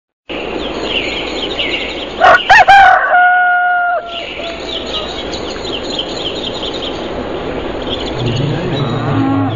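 Songbirds chirping, with a rooster crowing once about two seconds in, the loudest sound, its final note held. A low hum comes in near the end.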